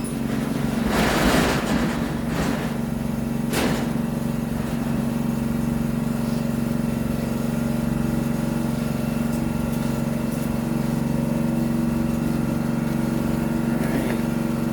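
Steady electric machine hum from the shop's air compressor and ventilation fan running, even and unchanging. A few brief clatters from handling sound in the first few seconds.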